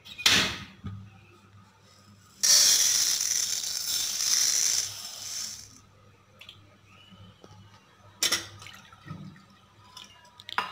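Granulated sugar poured into a stainless steel pot, a hiss lasting about three seconds. A sharp knock comes just before it and another a few seconds after it.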